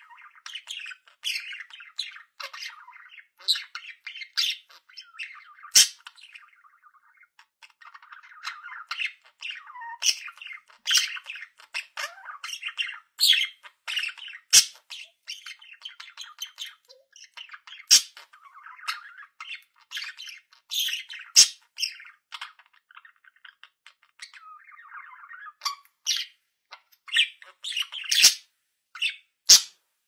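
Budgerigar chattering: a steady warble of soft, rapid notes, broken every second or so by sharp, loud chirps and squawks.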